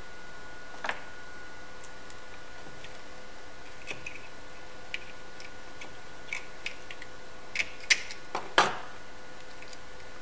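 Scattered small clicks and taps of hands and tools handling a copper wire-loop test fixture on a benchtop LCR meter, the loudest few near the end. Under them runs a faint steady high whine.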